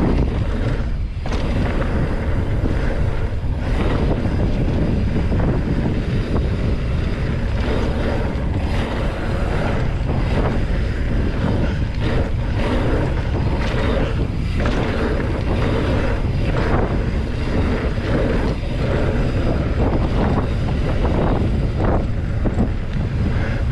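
Wind buffeting the microphone while riding a mountain bike along a dirt trail: a steady, heavy rumble with frequent knocks and rattles from the bike over bumps.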